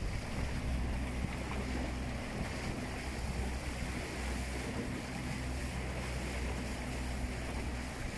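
Small plywood boat running fast under a home-built electric outboard at about 4.5 kW: water rushing and splashing in the wake, with wind on the microphone. Underneath, a steady low hum.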